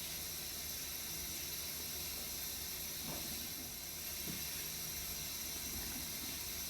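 Steady hiss of background noise, with a few faint soft sounds about three, four and six seconds in.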